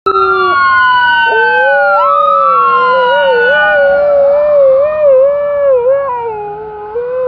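An emergency vehicle siren wails in slow rising and falling sweeps while a husky howls along. The dog's howl starts about a second in and holds as one long, wavering note that lasts to the end.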